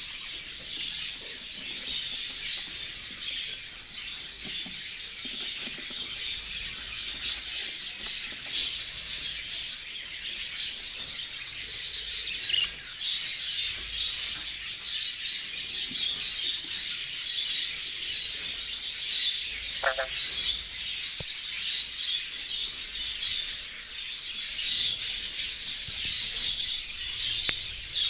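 A flock of budgerigars chattering and warbling without pause, many birds twittering at once.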